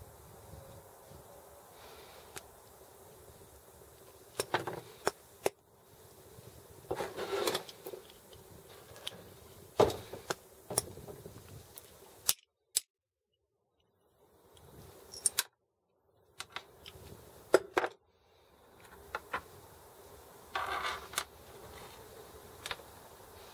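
Steel internal parts of a Sturmey-Archer S5C five-speed hub being handled and worked with pliers: scattered metallic clicks, taps and short scraping rattles of steel on steel, with a few quiet gaps between them.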